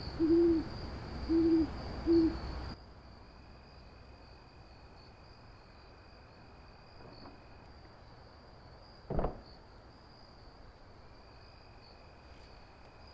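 An owl hooting three times, about a second apart, over a background hiss of night air. After the hoots the sound drops to quiet room tone, with one brief soft noise about nine seconds in.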